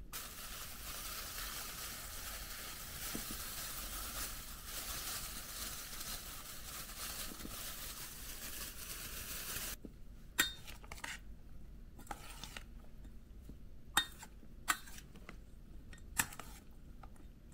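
Food frying in hot oil, a steady sizzle that cuts off abruptly about ten seconds in. After it come a few sharp, separate clinks of kitchen utensils against dishes.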